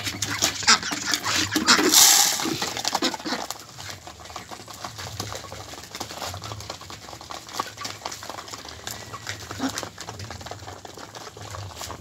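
A flock of Muscovy ducks and hens pecking and dabbling at crushed-grain feed in a dish, a dense, irregular patter of beak clicks, with a short loud rush of noise about two seconds in.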